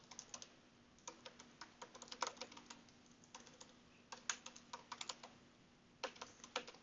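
Faint computer keyboard typing: quick runs of keystroke clicks with short breaks between words, including a pause of about half a second near the end. A faint steady hum lies underneath.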